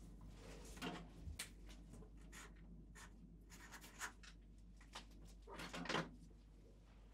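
Paper handling at a desk calendar: scattered soft scratches and rustles, with a louder burst of rustling about six seconds in, over a steady low hum.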